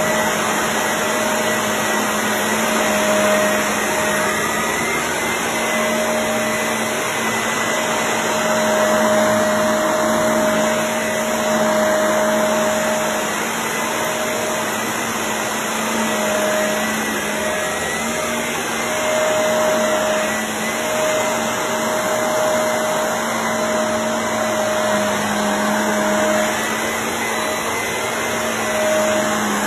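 Shark Navigator upright vacuum cleaner running on carpet: a steady motor drone with a constant whine, its loudness swelling and dipping a little.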